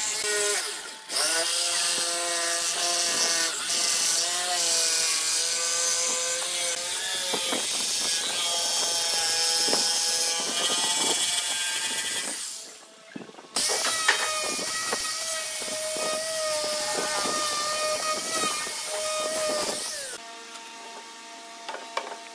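Electric jigsaw running and cutting through pallet-wood slats, its motor pitch shifting as the blade works along the curve. The sawing breaks off briefly twice, then stops a couple of seconds before the end.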